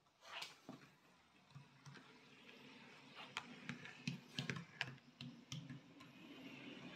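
Piko H0-scale BR 221 diesel model locomotive rolling across points, its wheels clicking irregularly over rail joints and turnout frogs. Near the end the clicks give way to a steadier running hum from the locomotive.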